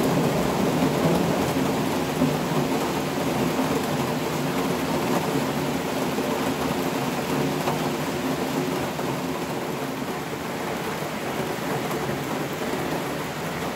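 Heavy rain falling steadily during a thunderstorm, with a long roll of thunder rumbling and slowly fading away.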